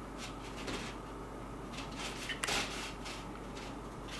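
Thin clear plastic tray scraping and crackling on a tabletop as a cat paws at it, in a few short bursts with a sharper clatter about two and a half seconds in.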